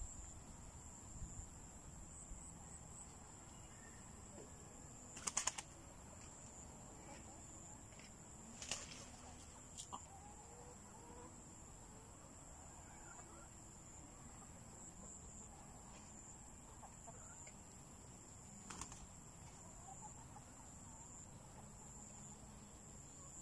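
Black chickens roosting in a tree, giving soft, scattered clucks, with a few brief flutters of wings or branches, the loudest about five and nine seconds in. A steady high-pitched insect chirr runs underneath.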